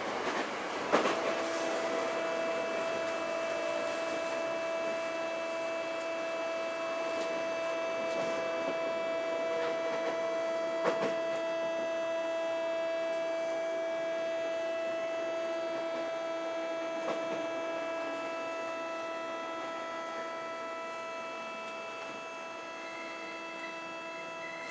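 Tokyo Metro 8000 series car's Mitsubishi thyristor armature chopper whining, heard from directly above the chopper unit: a steady high tone with several overtones sets in about a second in and holds its pitch. Underneath is train running noise that slowly fades toward the end, with a couple of single clicks.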